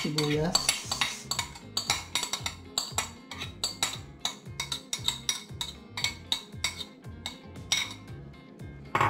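Metal spoon scraping and tapping against white ceramic bowls as chopped onion is scraped from one bowl into another: a quick run of clinks and scrapes, a few each second.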